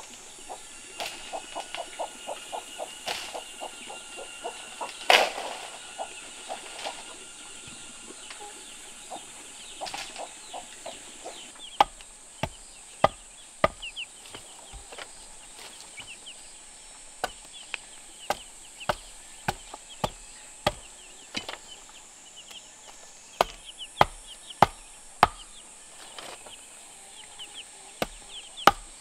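Chickens clucking over a fast run of light taps, with one loud knock about five seconds in. From about twelve seconds in come sharp chopping strokes, roughly one a second, over a steady high insect drone.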